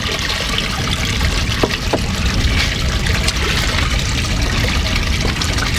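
Water lapping and splashing around a small boat, over a steady low rumble.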